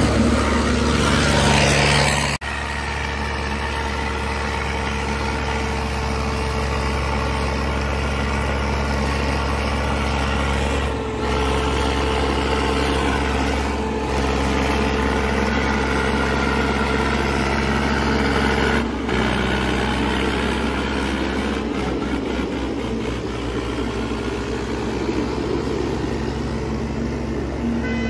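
Diesel tractor engines running steadily under heavy load during a tractor tug-of-war, heard in several takes that cut off abruptly.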